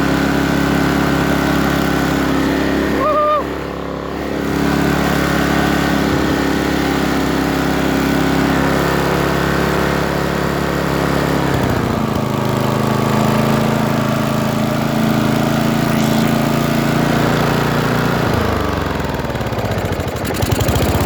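Small engine of a pulley-swapped riding lawnmower running steadily while the mower is driven. The engine note drops about halfway through and shifts again near the end.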